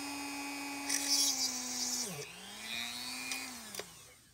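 Small handheld rotary drill running with a thin bit, drilling out the hub of a ball-mouse wheel. Its steady motor hum has a brief grinding hiss as the bit cuts and dips slightly in pitch under load. About two seconds in it winds down, speeds up again briefly, then spins down near the end.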